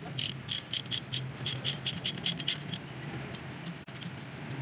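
Ratchet wrench on a socket extension clicking in quick, slightly uneven strokes, about four or five a second, while undoing the rear axle's retainer nuts through the axle flange. The clicking stops a little past halfway. A low steady hum runs underneath.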